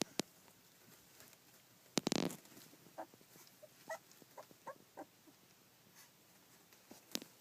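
Two-week-old rough collie puppies squeaking and whimpering faintly in short, high little cries, mostly between about three and five seconds in. There are a few sharp clicks, and a brief loud rustle about two seconds in.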